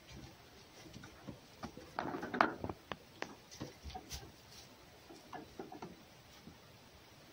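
Red fox's paws tapping and scrabbling on the straw-covered top of a wooden box, with a louder scuffle about two seconds in and scattered light taps after.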